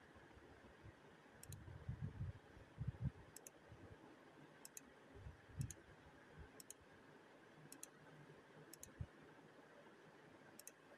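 Near silence with faint, sharp double clicks at uneven intervals of about a second, and a few soft low thumps in the first half.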